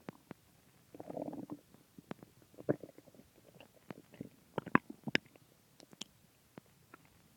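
A person's stomach and gut gurgling after a large meal of pizza and ice cream. There is a low, rumbling gurgle about a second in, then a run of short pops and squelches; the loudest comes near the middle.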